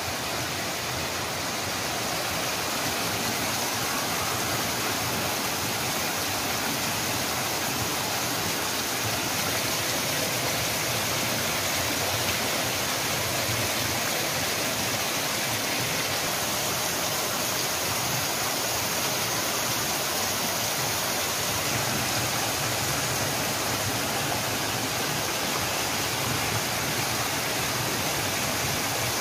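Decorative fountain: small water jets and sheet cascades over stone ledges splashing into a shallow pool, a steady rush of falling water.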